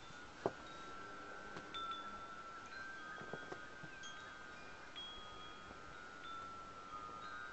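Chimes ringing: several long overlapping tones with short higher pings coming and going, and a sharp click about half a second in.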